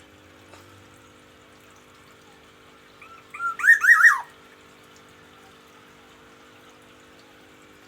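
Black-naped oriole calling once: a quick run of four or five arched, rising-and-falling notes lasting about a second, a little before the middle.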